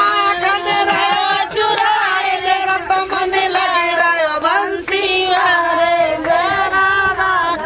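A group of women singing together with long held notes, a Hindu devotional song.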